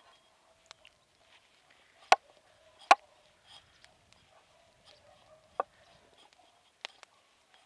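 A few sharp knocks or taps: two loud ones close together about two seconds in, then two fainter ones later.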